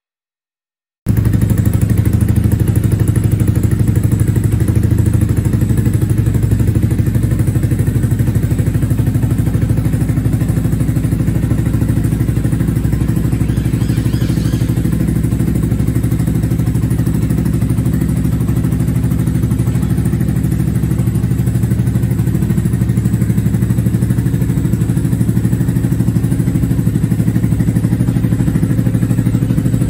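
Yamaha YZF-R125's 125 cc single-cylinder four-stroke engine idling steadily through an aftermarket BlackWidow exhaust, starting about a second in.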